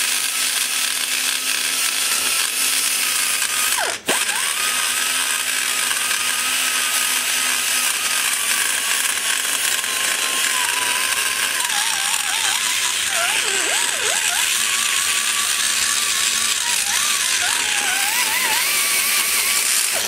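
Die grinder with a burr spinning at a high steady whine over a hiss, cutting around the valve guide in the port of an aluminum LT-1 cylinder head to reshape the guide boss. It drops out briefly about four seconds in. Later the pitch sags and wobbles several times as the burr bites into the metal.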